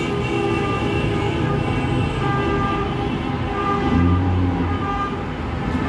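Car horns honking in street traffic, several held tones overlapping without a break: celebratory honking.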